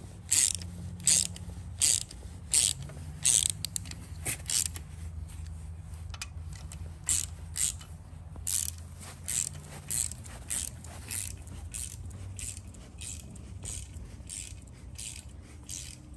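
Hand ratchet wrench clicking in repeated back-and-forth strokes as it runs down a bolt on an engine block, about one stroke every three-quarters of a second, growing fainter in the second half. A low steady hum runs underneath.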